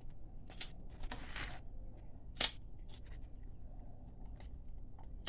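A multi-purpose tool's cutting jaws snipping through a porcupinefish's spiny skin: a handful of sharp snips and clicks with a longer scrape just after a second in, the loudest snip about two and a half seconds in.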